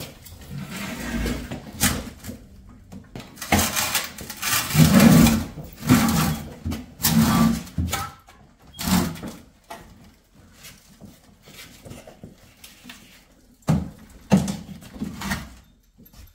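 Irregular knocks, clunks and rattles of hands-on work on a snowmobile in a small room, busiest between about four and eight seconds in.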